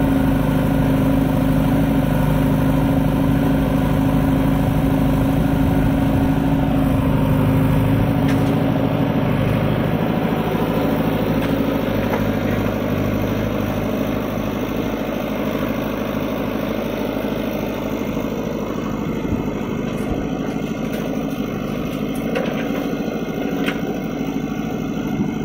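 Diesel engine of a JCB 3DX backhoe loader running close by: a steady low hum for the first several seconds, turning less even as the backhoe digs.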